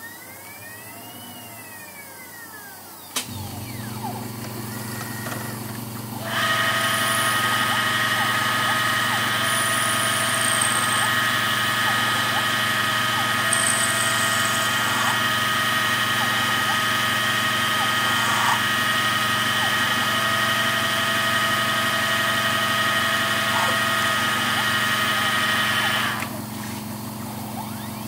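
Home-built CNC lathe running an automatic cycle: a motor whine first rises and then falls in pitch as the axes make a move. About three seconds in a click starts the spindle motor, which runs with a steady hum of several fixed tones. It steps up louder about six seconds in and drops back a couple of seconds before the end.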